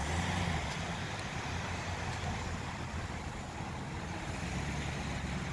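Road traffic: a full-size van's engine running low as it pulls slowly past close by, its rumble strongest in the first second, over the steady noise of a queue of cars moving through a roundabout.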